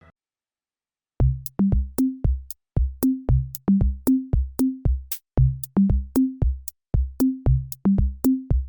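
Electronic music: a drum-machine beat of deep, pitched drum hits at about three to four a second, starting about a second in after a moment of silence.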